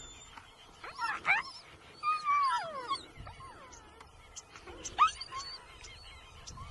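Several high animal cries that glide in pitch: rising sweeps about a second in and again near five seconds, and a longer cry around two to three seconds in that falls away.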